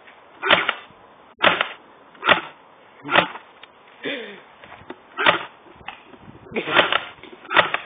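BB guns firing, about eight sharp single shots at uneven intervals of roughly a second.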